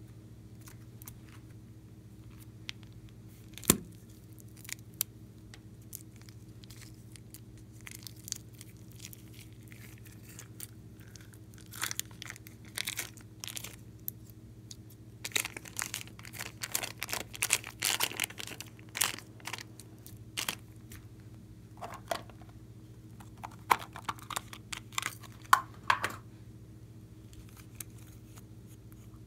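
Glossy slime squeezed out of plastic piping bags and worked with the fingers: sticky crackling and popping clicks in scattered bursts, sparse at first and thickest through the middle and later part. A faint steady hum lies underneath.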